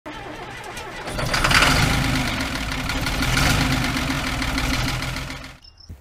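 An engine running, growing louder about a second in and holding there, then cut off abruptly near the end.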